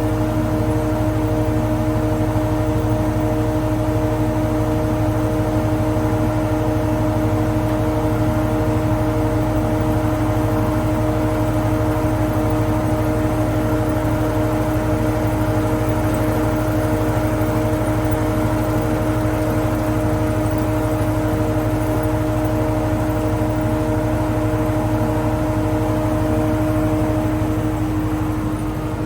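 TOS Svitavy FWD 80 double-sided wood planer running, its two four-knife cutterheads turning, with a steady hum and a steady whine. Near the end one tone of the whine fades and the sound drops slightly.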